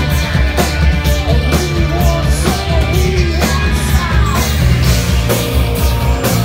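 Rock song from a four-piece band: a steady drum-kit beat under bass and electric guitar, with a melody line over the top.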